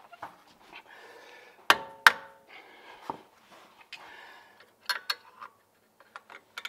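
Steel anti-rattle spring clip being worked onto a front brake caliper: sharp metallic clicks and clanks. The two loudest come close together about two seconds in, one leaving a short ring, and another pair comes about five seconds in.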